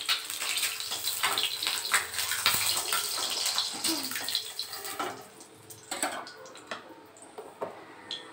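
Hot oil sizzling in a kadai as fried whole eggs are lifted out with a metal spatula, which scrapes and clicks against the pan. About five seconds in, the sizzle dies down, leaving only a few faint clicks.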